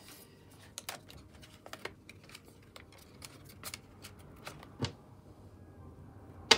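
Plastic banknotes being handled and slid into a binder's plastic pocket: soft crinkling rustles and light clicks, with a single sharper knock about five seconds in.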